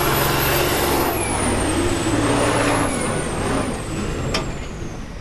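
Kirovets K-700-series tractor's diesel engine running hard under load, pulling a weight-transfer sled. From about a second in, a high whistle slowly falls in pitch. A sharp click comes near the end, and the engine eases off a little toward the end.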